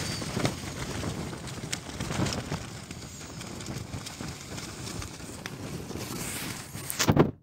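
Tent fabric flapping and buffeting in the wind: a rushing noise full of irregular sharp snaps of the nylon walls. A louder flap comes near the end before the sound cuts off suddenly.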